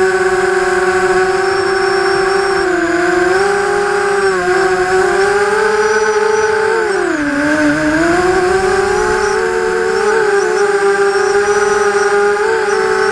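Vortex FPV quadcopter's electric motors and propellers whining, heard from its onboard camera. The pitch holds fairly steady with small wobbles, drops sharply about seven seconds in as the motors slow, then rises back.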